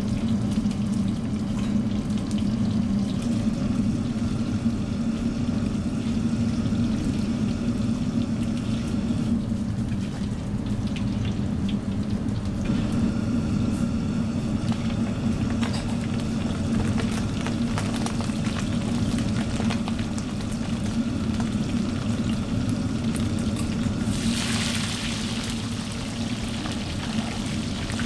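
Hot oil sizzling and bubbling in a wok as food deep-fries, over the steady low rumble of the wok range's gas burner. About three-quarters of the way through, the sizzle swells into a louder hiss for a couple of seconds, then settles.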